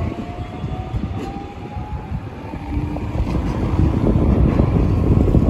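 Iyotetsu 5000-series low-floor tram pulling away along street track, its wheels rumbling on the rails, with a faint rising whine until about halfway through. A low rumble grows louder near the end.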